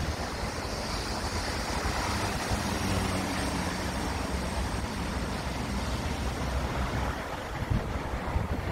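Street traffic noise: a steady wash of road noise with a motor vehicle's engine hum, plainest a few seconds in.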